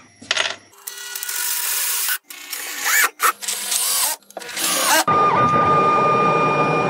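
A cordless drill driving screws into a plywood plate in several short bursts, its motor pitch rising and falling. About five seconds in, a CNC mill starts and runs steadily with a constant high whine.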